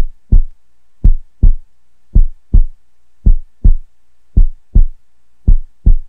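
Heartbeat sound effect: a steady lub-dub double thump, six beats at a little under one per second.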